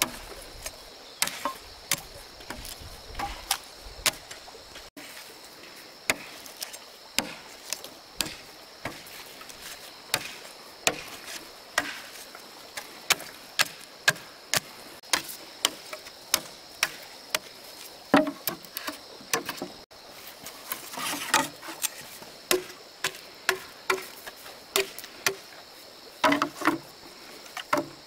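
A hand tool striking wood in repeated sharp knocks, irregular in pace with some quick doubles, over a steady high insect drone.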